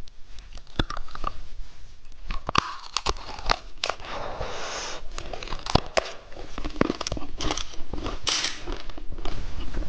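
Candy being eaten along with its plastic packaging being handled: crinkling and tearing rustles mixed with sharp biting and crunching clicks, with two longer rustles about four and eight seconds in.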